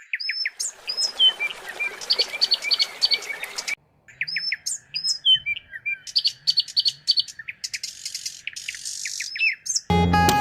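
Several birds chirping and calling with quick repeated chirps, short whistles and trills, broken by a brief silence about four seconds in. Acoustic guitar music comes in right at the end.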